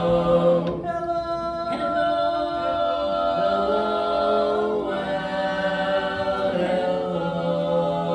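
Male barbershop quartet singing a cappella in close four-part harmony, holding sustained chords that change every second or two.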